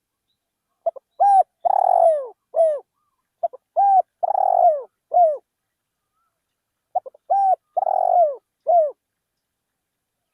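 Spotted dove cooing: three repeated phrases of a few short notes around one longer, falling coo, each about two seconds long and about three seconds apart.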